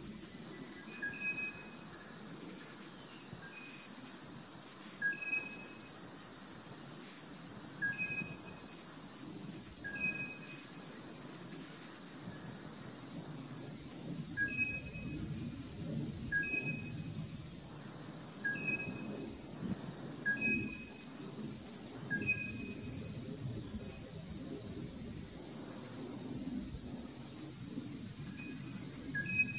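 Steady high-pitched drone of insects, with short two-pitched call notes repeating every second or two and a low background hum.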